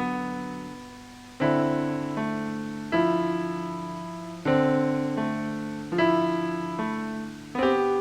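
Slow ambient piano music: chords struck about every one and a half seconds, each left to ring and fade before the next.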